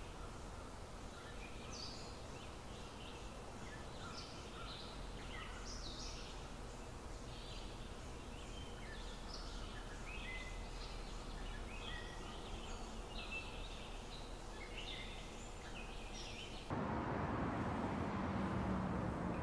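Birds chirping, many short high calls over a steady background hiss. About seventeen seconds in it cuts suddenly to louder, steady street noise.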